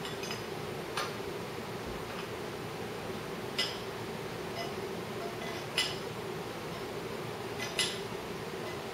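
Ratchet wrench and socket working a bolt on the cam support plate of a Harley Twin Cam engine: five single sharp metal clicks, a second or two apart, over a steady low hum.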